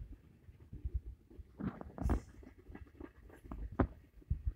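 Freight train rolling slowly past close by: irregular clunks and clicks from the wheels and cars on the rails, with low rumbles between them and the loudest knock about two seconds in.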